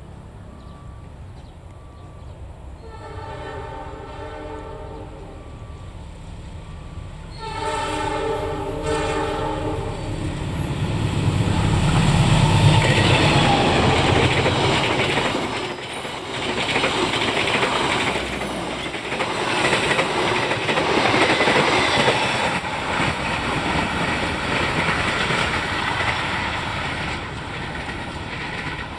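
Train horn sounding twice, the second blast louder, as the train approaches. Then the train passes close: a loud engine rumble, followed by the wheels rolling and clattering over the rails.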